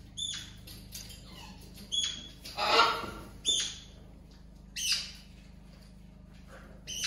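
Pet parrots squawking and screeching in a string of short, sharp calls, the loudest about three seconds in.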